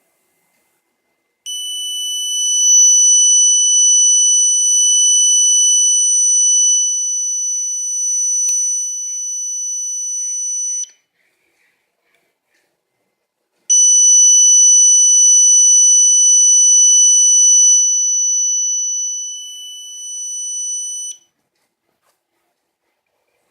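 A simple electronic alarm circuit sounding a steady, loud, high-pitched alarm tone: it sounds for about nine seconds, cuts off, then sounds again for about seven and a half seconds.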